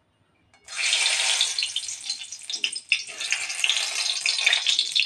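Dried red chilies hitting hot oil in a wok, sizzling and crackling steadily from about a second in: the tadka (tempering) being made.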